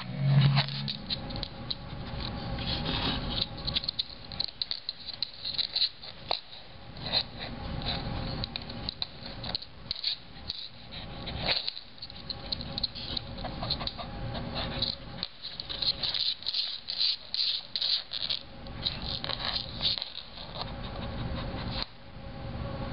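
A shih tzu's claws scratching and scrabbling on a hardwood floor as it paws under a chair, in quick, irregular flurries that come thickest about two-thirds of the way through.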